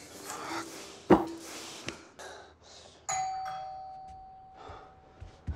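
A doorbell rings once, about three seconds in: a single chime tone that starts suddenly and fades away over about two seconds. Earlier, about a second in, there is a sharp thump, the loudest sound here.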